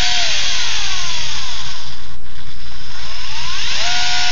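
Black & Decker 4-volt gyro screwdriver's motor and gearbox running with a steady whine, then winding down in pitch to a near stop about two seconds in and spinning back up near the end. The speed follows the twist of the hand on the motion sensor.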